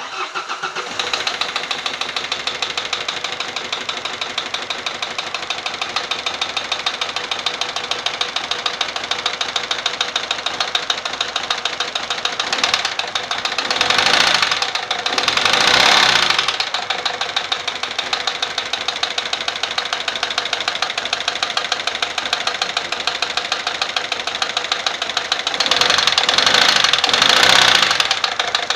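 Peugeot 407's 1.6 HDi four-cylinder turbodiesel running with a steady rhythmic knocking, the abnormal engine noise the car is being checked for. It swells louder briefly around halfway and again near the end.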